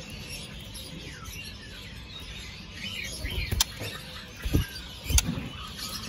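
Scattered short chirps and calls from caged songbirds, with a few sharp clicks and low knocks about three and a half to five seconds in.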